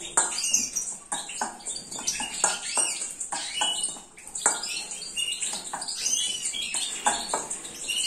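A metal spoon stirring a dry seed-and-powder feed mix in a stainless steel bowl, giving irregular scrapes and clinks against the metal. Small cage birds chirp in the background.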